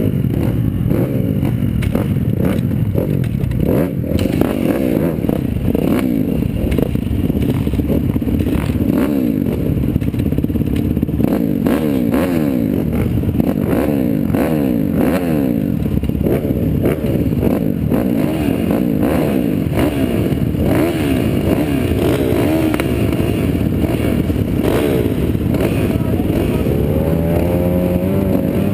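A row of motocross bikes idling and blipping their throttles at the starting gate, several engines overlapping with pitches wavering up and down. Near the end, revs climb sharply as the start nears.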